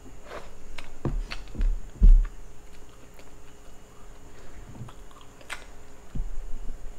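Close-up chewing and wet mouth sounds of someone eating a handful of buttered shrimp and rice, with scattered clicks and smacks. A low thump about two seconds in is the loudest sound.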